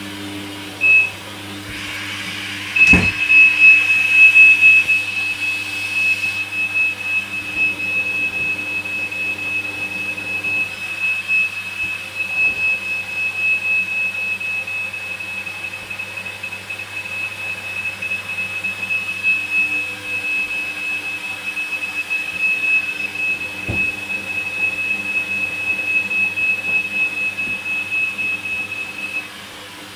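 Hoover Dynamic washing machine taking in water for its final rinse. There is a click about three seconds in, then water rushes in with a steady high whistle from the inlet valve, and it shuts off near the end.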